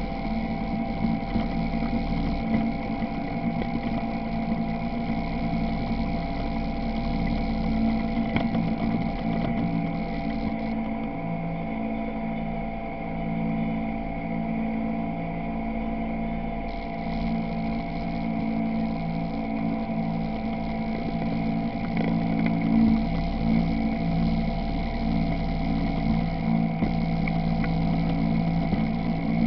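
ATV (quad bike) engine running close by at a steady speed, a constant drone that barely changes in pitch.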